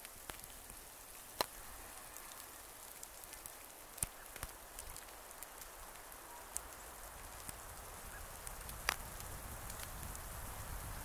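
Precipitation falling outdoors: a steady hiss dotted with many small ticks of drops or pellets striking surfaces, and three sharper clicks.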